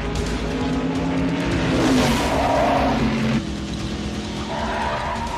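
NASCAR stock car V8 engines running at full race speed. The pitch drops as a car passes about two seconds in, and the sound changes abruptly a little past three seconds.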